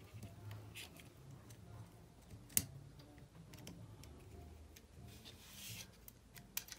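Faint clicks and ticks of small plastic and metal model-locomotive parts being handled: the plastic motor block and its metal pickup shoe turned and fitted by hand. One sharper click comes about two and a half seconds in, and a brief scrape just past the middle.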